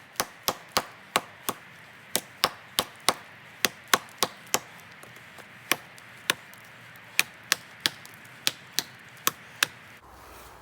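Large tracker-style bushcraft knife chopping into a frozen tree trunk: about two dozen sharp blade strikes into the wood, roughly three a second, with a couple of short pauses, stopping just before the end.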